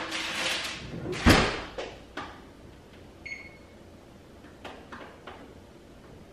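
An oven door is shut with a thud about a second in, after a rustle as the tray of wings slides in. About three seconds in the oven's control panel gives one short beep, followed by a few light clicks as the oven is set to bake.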